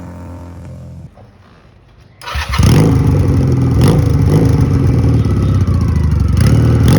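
Honda CMX250 Rebel's small air-cooled parallel-twin engine starting about two seconds in, after a short quiet, then running steadily and loudly.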